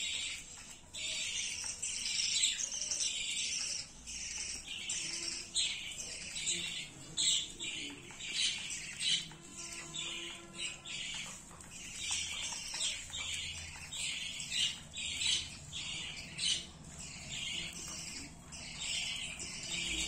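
A flock of budgerigars chattering: a constant stream of short, high chirps and squawks overlapping one another.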